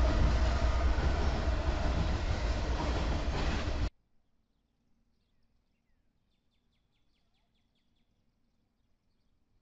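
Norfolk Southern diesel freight locomotives passing close by, engines running with wheel and rail noise. The sound cuts off abruptly about four seconds in, leaving near silence with a faint, rapid bird trill a few seconds later.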